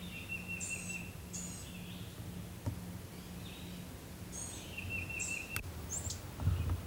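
A songbird singing twice: each phrase is a few short high notes followed by a buzzy trill lasting about a second, over a low steady hum. A sharp click comes about five and a half seconds in, and a dull thump near the end.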